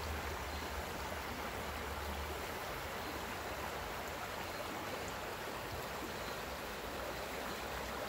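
Steady rush of a stream running over rocks. A low rumble under it stops about two and a half seconds in.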